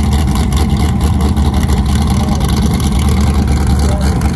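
Off-road sand car engines running steadily, a constant low rumble.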